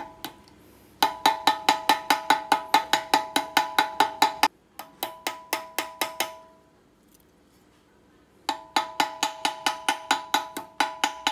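Hammer tapping rapidly on a rivet set on a steel bench-vise anvil, peening it to fasten a small steel plate onto a hard-drive head arm. About five blows a second in three runs, each blow ringing with a clear metallic tone.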